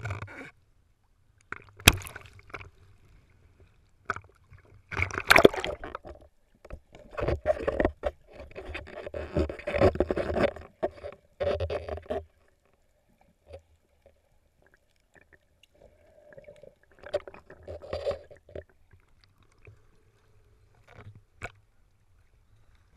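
Seawater splashing and sloshing around an action camera in a waterproof housing as it moves through the surface, going under and coming back up, in irregular bursts that are loudest in the first half.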